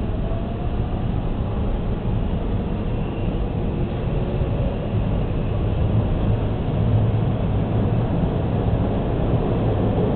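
Toronto TTC subway train running in a tunnel: a steady low rumble that grows a little louder in the second half.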